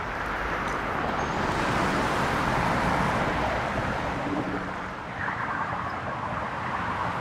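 Steady road traffic noise, swelling about two to three seconds in, with a short dip near five seconds.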